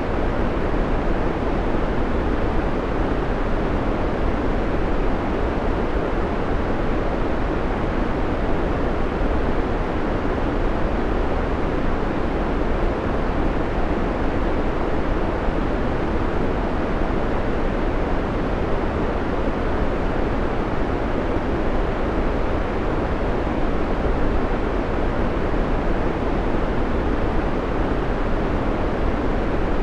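Steady synthetic white noise played as a timer's background, an even rushing hiss that never changes, fuller in the low and middle range than in the treble.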